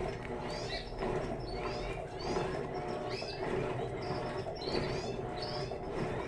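Electrolux LTE12 top-loading washing machine agitating: a steady motor hum, with a squeaky whine and a swish of water on each back-and-forth stroke of the agitator, a little more than one stroke a second.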